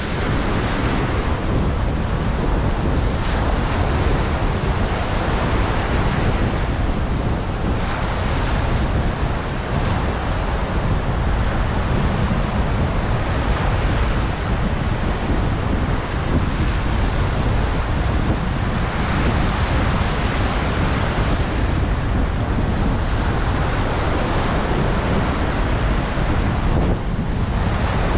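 Ocean surf breaking and washing up the beach in repeated swells every few seconds, with heavy wind buffeting the microphone underneath as a low rumble.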